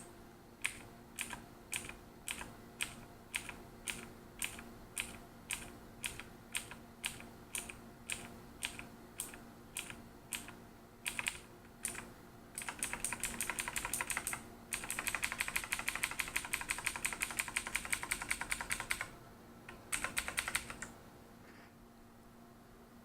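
Mechanical keyboard keys being pressed: single clicky keystrokes about two a second for roughly ten seconds, then fast runs of rapid typing, stopping about two seconds before the end.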